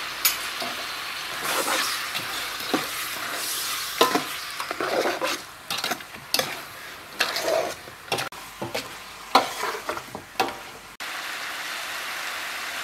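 Beef leg pieces sizzling in chili paste in a large metal pot while a metal ladle stirs them, with repeated sharp scrapes and clinks of the ladle against the pot.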